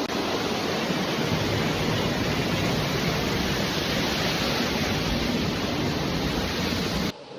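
Steady rushing of falling water from a waterfall, cutting off abruptly near the end.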